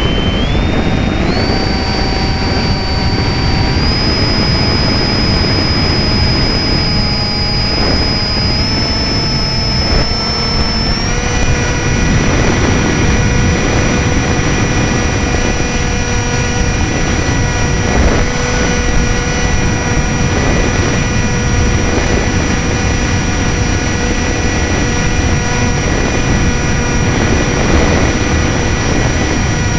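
Multiplex Easystar's electric motor and pusher propeller whining in flight, heard from the onboard camera with a heavy rush of wind over its microphone. The whine climbs in pitch over the first few seconds, steps up again about eleven seconds in as the throttle is opened further, then holds steady.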